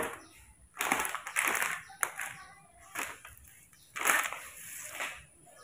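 Small plastic milk bottle being shaken and handled, in irregular rustling bursts about once a second, the longest near the start.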